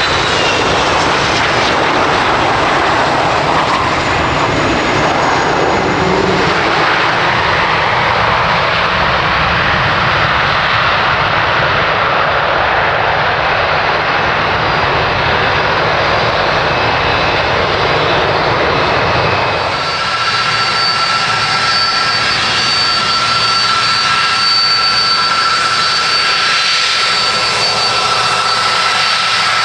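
Airbus A330-200 twin-engine jet airliner landing, its engines loud and steady, with a faint whistle falling in pitch near the start. About two-thirds of the way through the sound changes suddenly to a thinner engine whine with steady high tones.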